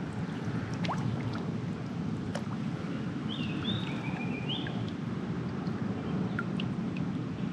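Steady low rush of water and wind around a drifting kayak, with a few faint ticks and one short bird call a little past three seconds in.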